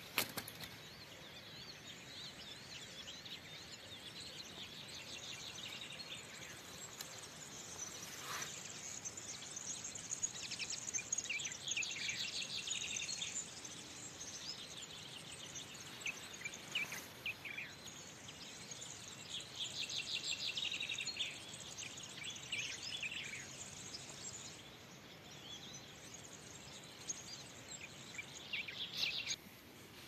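Small songbirds singing in bursts of rapid twittering trills, the loudest runs about ten to thirteen seconds in and again around twenty seconds, over a faint steady outdoor hiss.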